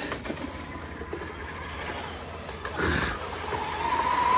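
Electric motor and gearbox of a Tamiya King Hauler radio-controlled truck driving off-road, quiet at first, with a brief louder rumble about three seconds in, then a steady whine building from about four seconds in.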